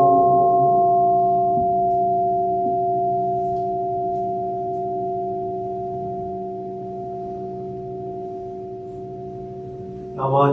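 Large Japanese temple bowl bell (keisu), struck with a cloth-wrapped wooden striker, ringing out with two steady tones that slowly fade; a higher overtone dies away within the first two seconds. Chanting starts again just before the end.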